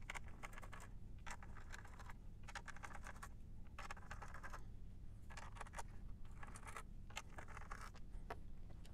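Faint, intermittent scratching and small clicks of fingers unscrewing and handling small screws on a circuit board's metal connector panel, in short bursts with pauses between.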